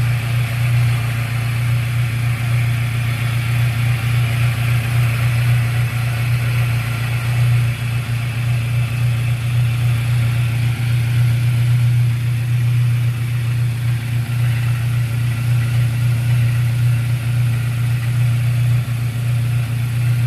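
A steady low mechanical hum with a fainter hiss above it, unchanging in pitch and level.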